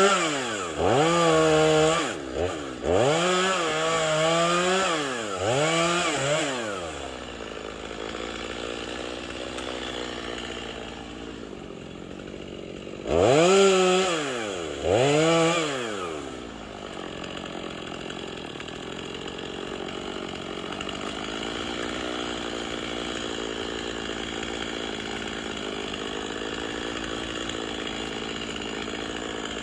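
Two-stroke chainsaw revved in short throttle bursts, its pitch rising and falling with each: several in the first few seconds and two more about halfway. In between and through the rest it idles steadily.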